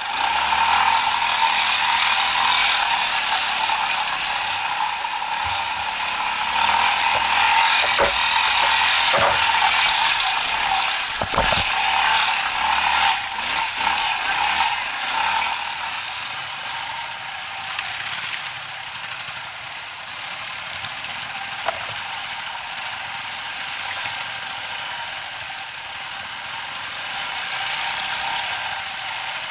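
Off-road motorcycle running on a rough trail, engine and chain clattering steadily, with a few sharp knocks about eight to twelve seconds in; it is louder in the first half and eases off later.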